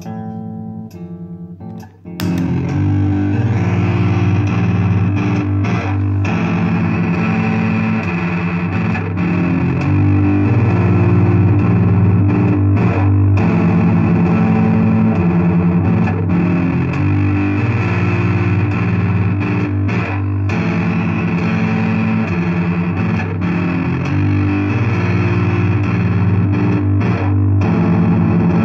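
Electric bass playing a chord progression through a distortion effect pedal. A few quieter plucked notes come first, then from about two seconds in there are loud, sustained distorted chords that change every couple of seconds.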